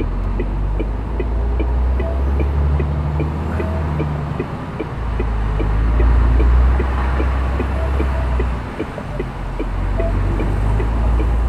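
Lorry's diesel engine running low inside the cab as it moves off and turns through the yard, with a steady faint ticking, about three a second, over the rumble.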